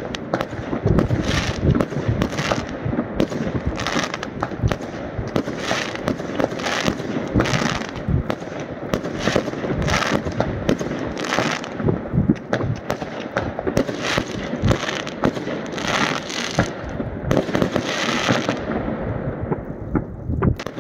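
New Year's Eve fireworks going off around a neighbourhood: a dense, unbroken barrage of bangs, pops and crackle from many rockets and batteries at once, thinning out near the end.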